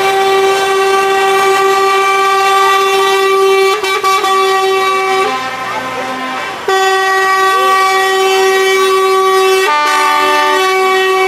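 Truck air horns blown in long, steady held blasts, with short breaks about four and about six and a half seconds in. Near the end a different horn chord sounds for about a second before the first note returns.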